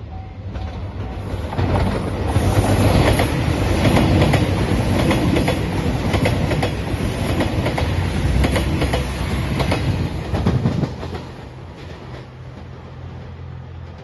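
JR Shikoku 2700 series diesel express train passing at speed over a level crossing: engines running and wheels clacking over the rail joints, loudest from about two seconds in until about eleven seconds, then fading to a low hum as it moves away. At the very start a level-crossing bell is ringing, soon drowned out by the train.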